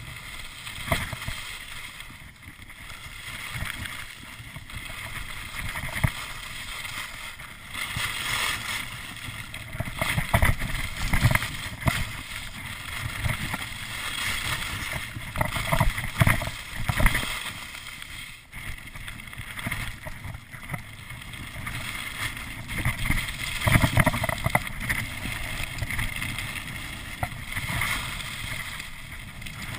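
Wind rushing over a ski-mounted or worn camera's microphone and skis scraping over packed snow on a fast downhill run. The noise swells and fades irregularly, with louder surges every few seconds.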